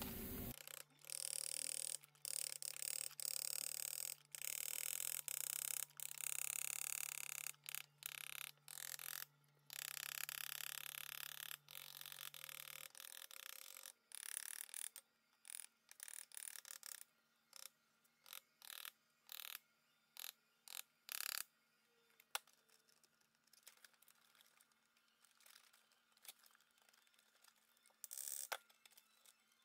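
Small hammer tapping paper against the cast flange of an 8-71 Roots blower, punching out a gasket template: many light, irregular taps, sparser in the second half.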